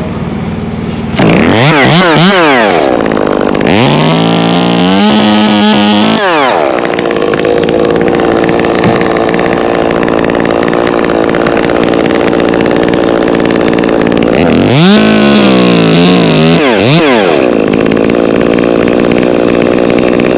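Chainsaw idling, then revved hard about a second in, its engine pitch swinging up and down with the throttle, and running steadily under load while cutting acacia wood. Another burst of revving comes about two-thirds of the way through.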